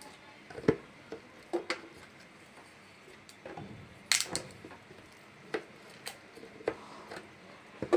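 Scattered clicks and light knocks of a stainless steel mixer-grinder jar and its lid being handled and fitted together, the sharpest a little after four seconds in.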